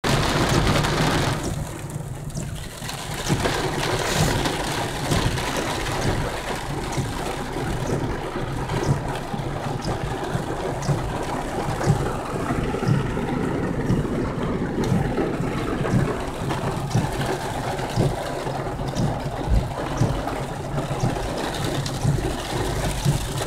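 Torrential rain hitting a car's roof and windshield, heard from inside the cabin, over the steady low drone of the engine and tyres on a wet road, with scattered sharp taps.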